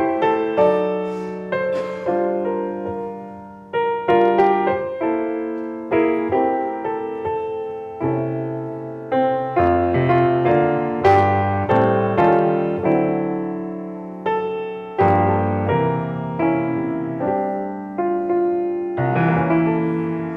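Solo piano playing a slow piece: chords and melody notes struck about once a second and left to ring and fade.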